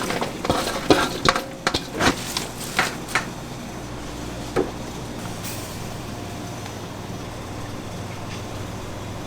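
Kitchen clatter: a quick run of clinks and knocks of utensils and dishes for about three seconds, one more clink a little later, over a steady low mechanical hum.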